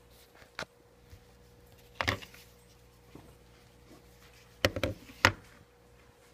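A few sharp knocks and clicks from handling a Hitachi 12-volt cordless grinder, with its motor switched off; the loudest knock comes about five seconds in.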